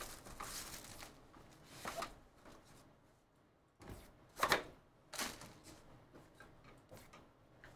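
Hands opening a cardboard trading-card box and lifting out a clear plastic card case: short scrapes, slides and knocks of cardboard and plastic, the sharpest about four and a half seconds in.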